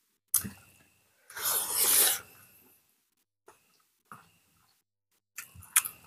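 Close-miked eating sounds of people eating rice and boiled pork with their fingers: short wet mouth clicks and chewing with silent gaps between them, and one loud breathy burst lasting about a second about a second and a half in.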